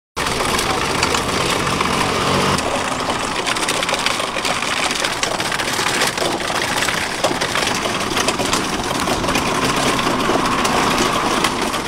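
Motor-driven charcoal rotisserie running steadily, its chain and sprockets turning the wire spit baskets, with a constant light clicking.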